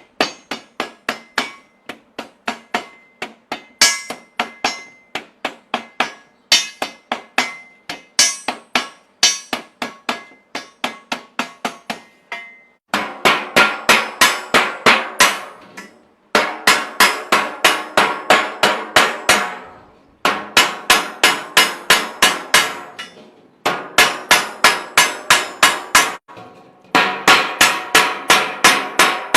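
Hand hammer striking steadily, about four blows a second. Under the first half the blows carry a ringing tone. From about halfway they come in louder, fuller runs of a few seconds each, with brief pauses between.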